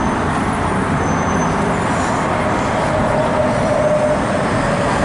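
Steady street traffic noise from the city below, a continuous rumble and hiss with a faint whine joining about two seconds in.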